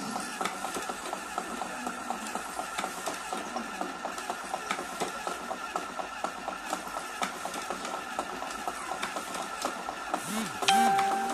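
Small electric rolling machine running with a steady whine and a regular, rapid clicking of its mechanism. About ten and a half seconds in there is a brief louder sound with a held tone.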